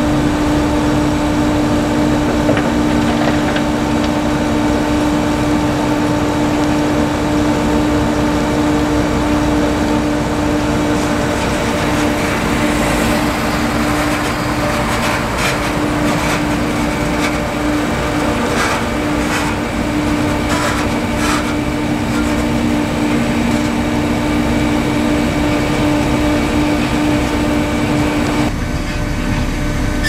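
Potato harvesting machinery running with a steady droning hum, joined around the middle by irregular rattling and clattering; the hum changes shortly before the end.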